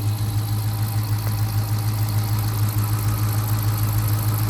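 The 5.7-litre HEMI V8 of a 2019 Dodge Charger R/T, fitted with a new JLT cold air intake, idling steadily.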